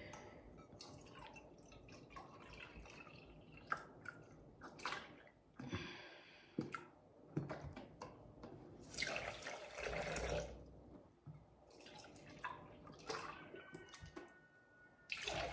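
Liquid being poured and dripping into a cooking pot, with scattered light clinks and knocks of kitchen utensils.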